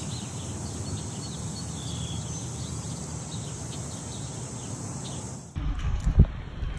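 Outdoor pasture ambience: a steady noise with faint, short, high chirps of small birds. About five and a half seconds in it switches abruptly to a louder low rumble, with one sharp thump just after.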